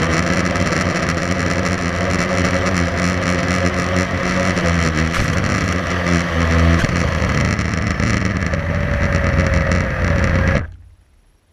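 Blade 350 QX3 quadcopter's electric motors and propellers buzzing steadily, heard close up from the camera on board, with the pitch shifting as it comes down into the grass. Near the end the motors stop abruptly, as the landed drone is shut down.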